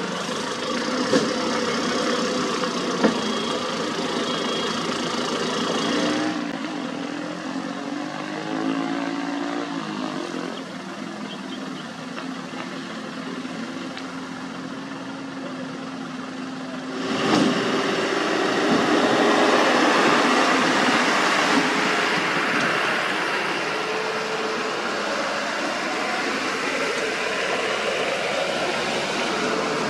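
Heavy road-paving machinery running, with steady diesel engine hum and mechanical noise. The engine sound changes abruptly twice, about six seconds in and again about seventeen seconds in, when it grows louder and noisier.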